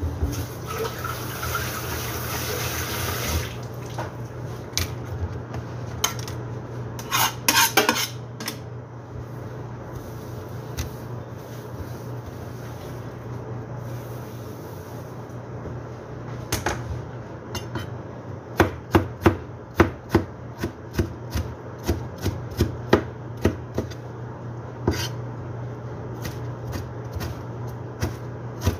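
Knife chopping on a plastic cutting board: a run of sharp knocks about two a second in the second half, as tomatoes are diced. Earlier, kitchenware clatters briefly.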